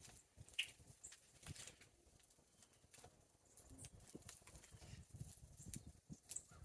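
Faint, scattered ticks and taps of small birds feeding in the snow, with a short faint chirp about half a second in.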